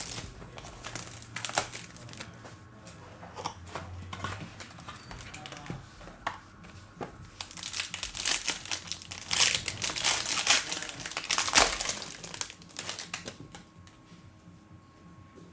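Crinkling and tearing of the wrapping as a sealed box of trading cards is opened, an irregular run of crackles that is busiest in the second half and dies down near the end.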